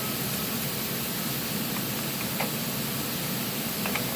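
A few faint clicks from a key turning in a Craftsman tool box's tubular lock, over a steady hiss.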